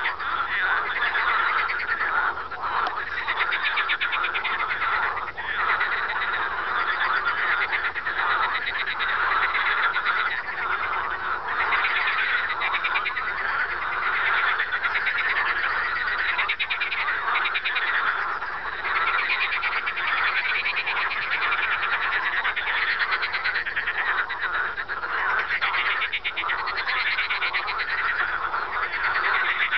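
A dense chorus of frogs croaking without a break, many rapidly pulsed calls overlapping, with a laugh-like call from one frog standing out over the rest.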